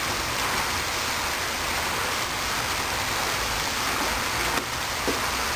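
Steady rushing hiss of water falling from a poolside fountain.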